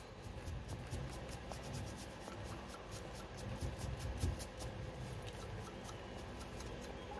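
Faint rubbing and scratching of a cotton bud wiping grease off the steel rack of an airsoft gearbox piston.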